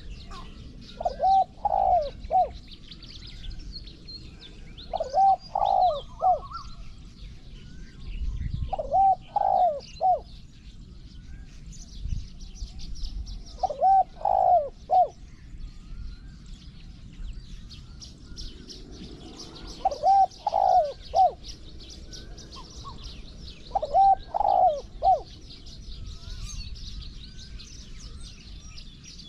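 Spotted dove cooing in short phrases of three or four low coos. The phrase comes six times, about every four seconds, over constant high-pitched chirping of small birds.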